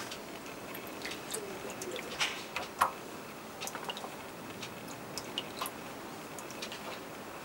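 Hands pressing and rubbing wet cloth in a shallow tray of water, washing out the resist paste and excess dye: scattered small wet clicks and light splashes, the sharpest a little under three seconds in.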